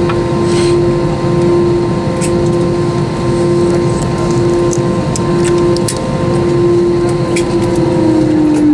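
Airbus A321's jet engines at idle thrust while taxiing, heard inside the cabin: a steady hum with a low rumble and a couple of steady tones, the main tone beginning to drop in pitch near the end. A few faint light clicks sound over it.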